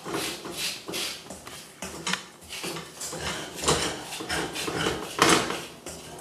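Wooden spatula stirring sugar-coated almonds and hazelnuts in a stainless steel saucepan: a repeated gritty scraping and rattling of the nuts and their grainy, crystallised sugar coating against the pan, about two strokes a second. The sugar is being brought back over the heat to melt it again, a stage in making chouchous (sugar-coated nuts).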